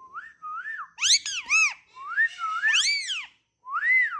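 Pet parrot giving about half a dozen short whistled calls in quick succession, each swooping up and down in pitch, the loudest ones about a second and three seconds in.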